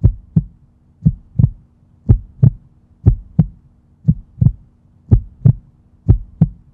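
Heartbeat sound effect: a steady double thump about once a second, over a faint low hum.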